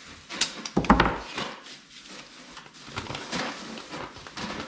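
Blue painter's tape being pulled off the roll and pressed by hand onto a wooden cabinet face frame, with a loud thump about a second in and light crackling of tape near the end.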